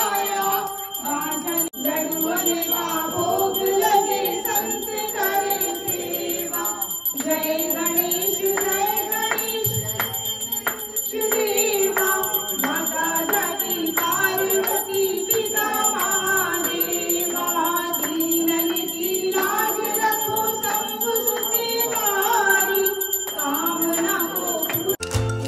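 Devotional aarti song: a voice singing a melody over music, with a bell ringing steadily above it. The music cuts off abruptly near the end.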